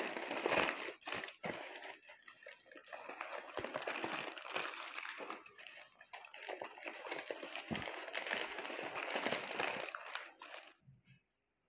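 Aluminium foil and baking paper crinkling and rustling as a foil parcel is unwrapped by hand, in irregular bursts with brief pauses, stopping near the end.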